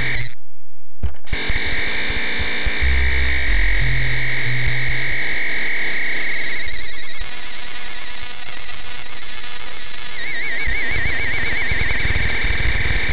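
Computer-generated synthesizer tones from a generative art program: a steady cluster of high electronic tones over low bass notes that shift pitch every second or so. The sound cuts out for about a second near the start, and later the high tones begin to warble.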